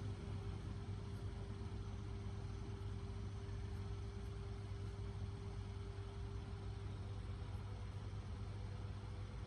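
Steady low mechanical hum with a faint constant tone above it.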